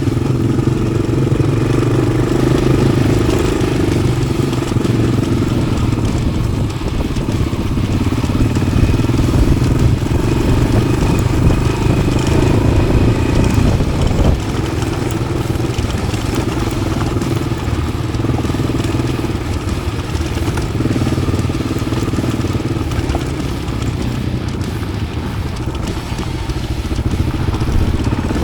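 Yamaha XT600's single-cylinder four-stroke engine running steadily through an Arrow aftermarket exhaust, its pitch and loudness rising and falling slightly.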